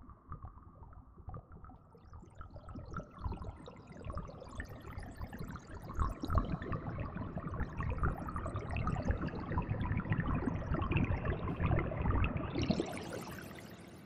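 Synthesized water-droplet and trickling-stream sound from a ZynAddSubFX AddSynth patch: noise through a resonant bandpass filter with reverb, played on very low notes. A dense bubbling patter thickens over several seconds, brightens near the end, then fades away as the notes' envelopes release.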